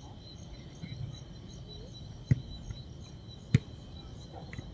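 Two sharp thuds of a football being kicked, about a second and a quarter apart, the second one louder, over a steady high chirring of insects.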